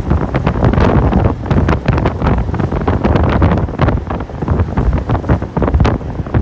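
Strong wind buffeting the microphone: a loud, uneven rumble with constant crackling gusts.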